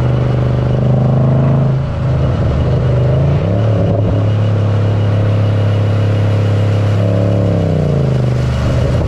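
Mercedes ML63 AMG V8 engine and exhaust running loudly, engine speed climbing and then dropping sharply about two seconds in, holding steady, and falling again near the end.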